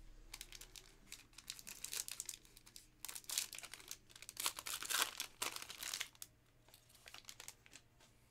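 A foil trading-card pack of 2020-21 Panini Contenders Optic basketball being torn open and crinkled by hand. It is a dense crackling that is loudest in the middle and dies away after about six seconds.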